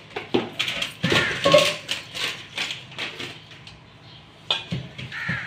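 A non-stick cooking pot and its glass lid clattering and knocking as they are handled, with paper and cardboard packaging rustling. The sharp knocks come thick over the first few seconds, ease off, then a few more come near the end.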